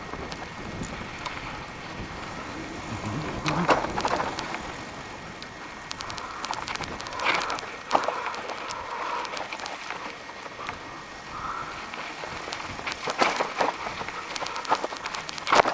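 Bicycle rolling along a dry dirt trail: a steady crunch of tyres on loose grit, broken by scattered sharp clicks and rattles over bumps, with a cluster of loud knocks near the end.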